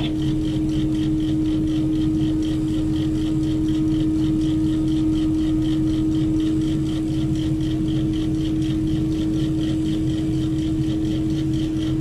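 Heavy mobile crane's diesel engine running steadily under load during a lift: a constant low rumble with a strong steady hum and a fast, even pulsing over it.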